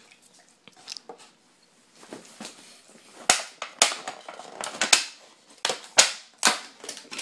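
Clear plastic clamshell sushi container being pried open: the lid crackles and snaps in a run of sharp pops from about three seconds in as it is unclipped and lifted.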